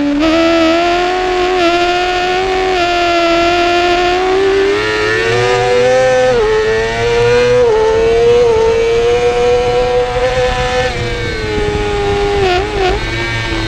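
2017 Yamaha YZF-R6's 600 cc inline-four engine running hard near the top of its rev range. The engine note climbs slowly, dips briefly several times and wavers up and down near the end as the throttle is worked.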